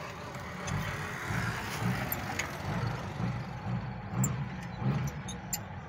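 A motor vehicle engine running with a low, unevenly pulsing hum. A few light clicks come near the end.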